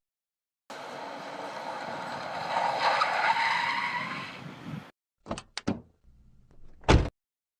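Recorded car sound effect: a car's tyres skidding, swelling to a peak and fading over about four seconds with a faint rising squeal, followed by a pause, a few short sharp knocks and a louder bang near the end.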